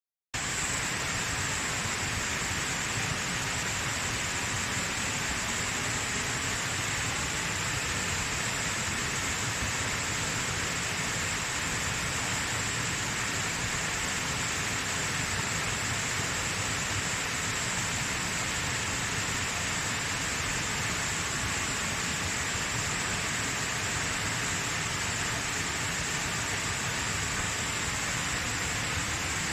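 Waterfall: a steady, even rush of falling water that starts abruptly a moment in and holds without change.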